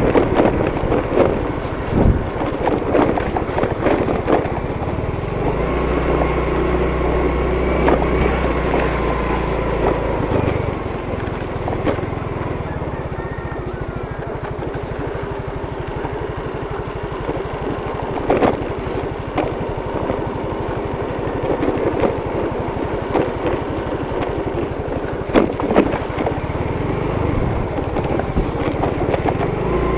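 Motorcycle engine running steadily while riding over a rough dirt and gravel road, with wind noise on the helmet or handlebar camera and scattered knocks from bumps and ruts.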